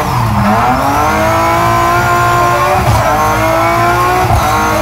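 Rally car engine, heard from inside the cabin, accelerating hard with the revs climbing. The revs drop at an upshift about three seconds in and again near the end.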